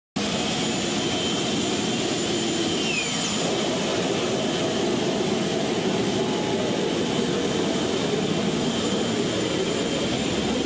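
Turbine-powered motorcycle's jet engine running steadily: a loud rush of exhaust with high whining tones over it, and a short falling whistle about three seconds in.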